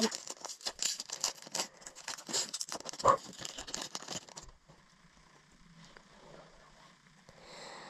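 Foil hockey card pack wrapper crinkling and tearing open, a dense crackle for about four and a half seconds, then faint rustling as the cards are handled.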